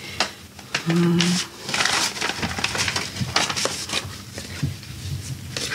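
Paper rustling and handling noises as old archive documents and photographs are leafed through, with a short murmured voice about a second in.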